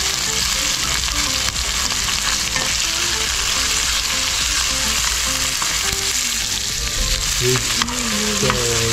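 Sliced onions and green chillies sizzling in hot oil in a metal kadhai, stirred with a steel ladle: a steady frying hiss as the onions are browned.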